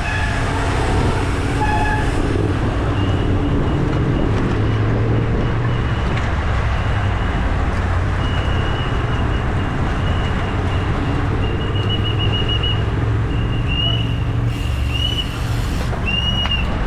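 Wind rushing over the microphone of a camera riding on a road bicycle, with tyre and road noise underneath and a faint, thin high whine that comes and goes in short blips.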